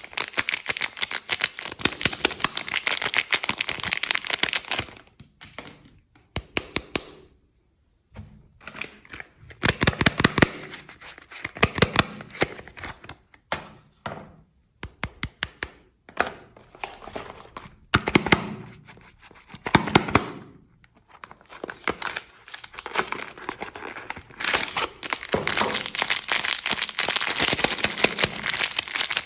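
Soap packaging being unwrapped close to the microphone: wrappers crinkling and tearing in bursts with brief pauses between them, full of sharp crackles.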